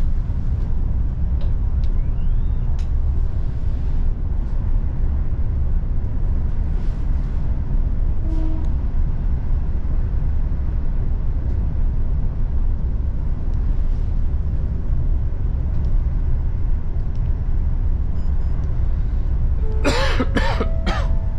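Steady low rumble of a Laos–China Railway electric multiple-unit train running, heard from inside the passenger carriage, with faint clicks now and then. Near the end a person coughs a few times, the loudest sound here.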